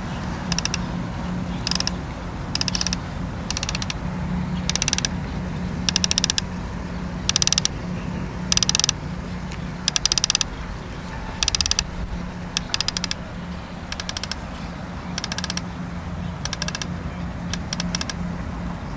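Conventional saltwater fishing reel's ratchet clicking in short rapid bursts, about one burst a second, over a steady low hum.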